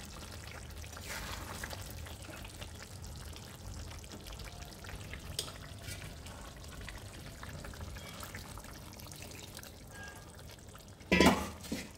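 Chicken curry with potatoes sizzling in a kadai on a gas stove while water is poured in to loosen the dry kosha into a gravy, with a brief loud burst of noise near the end.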